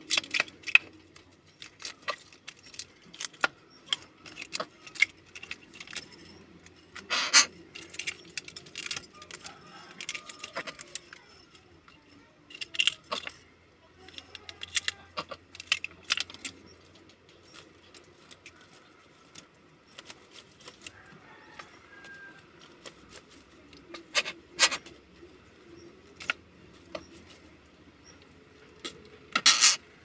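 Greater coucal handling and pecking at land snail shells on a wooden floor: irregular clicks and clatter of beak and shell on wood and shell on shell, with a few sharper, louder knocks scattered through.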